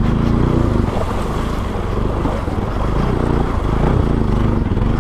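Bajaj Pulsar NS200 motorcycle's single-cylinder engine running steadily as the bike is ridden along, its low pitch wavering slightly.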